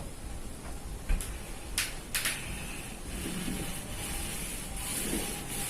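Wet wall paint being spread over a surface with a painting tool: a few light clicks and knocks, then from about three seconds in a steady soft hiss of the strokes.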